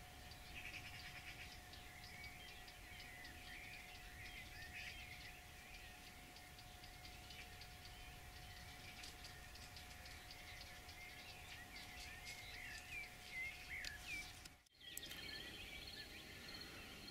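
Faint birdsong: small birds chirping and calling in quick, overlapping phrases, over a steady faint hum. About fifteen seconds in the sound cuts to different birdsong with a thin, steady high whine.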